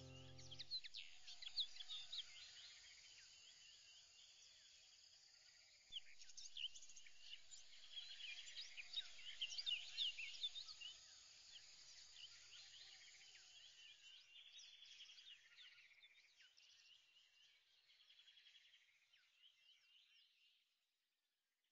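Faint chorus of many birds chirping, a dense mix of quick high chirps that fades away near the end.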